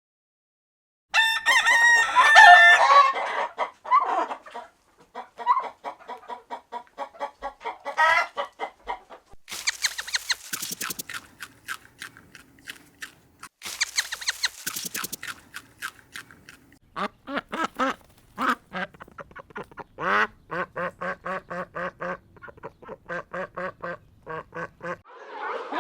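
Chickens clucking: after about a second of silence comes a loud drawn-out call, then a long run of short, quick, repeated clucks.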